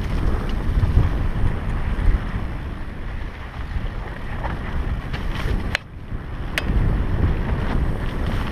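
Wind rushing over a helmet camera's microphone and mountain-bike tyres rumbling on a dry dirt trail during a fast downhill descent. A few sharp clicks from the bike over bumps come a little past the middle.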